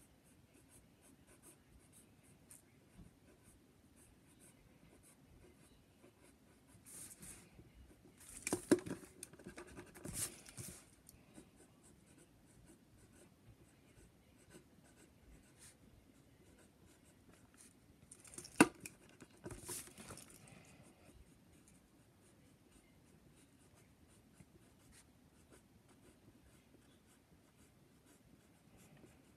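Pencil point scratching faintly on paper in short sketching strokes. Two louder stretches, about 8 and 19 seconds in, each carry a sharp click.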